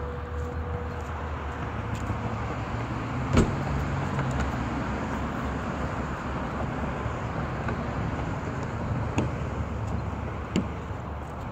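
A steady low, vehicle-like outdoor rumble, with one sharp knock about three seconds in and two lighter clicks near the end, as a suction-mounted PVC kayak loader is handled and fitted to the car.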